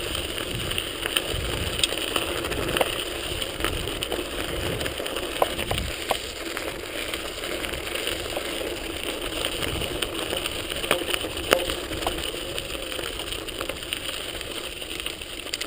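Bicycle riding noise: steady rolling noise with scattered clicks and rattles, plus a low rumble during the first six seconds or so.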